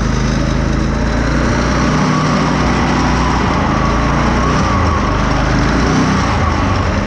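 Small pull-start go-kart engine running steadily, turning a belt-drive torque converter.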